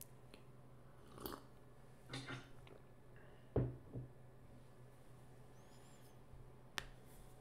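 Faint, scattered small knocks and rustles of movement at a desk over a low steady hum. The loudest is a short dull thump about three and a half seconds in, followed by a softer one, and there is a sharp click near the end.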